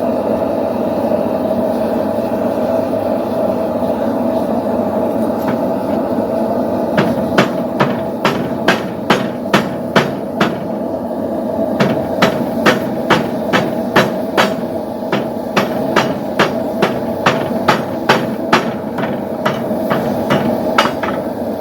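Hand hammer striking hot steel on an anvil while forging a poleaxe spike: a run of sharp, evenly paced blows, about two to three a second, starting about a third of the way in, with a short pause in the middle. A steady roar runs underneath.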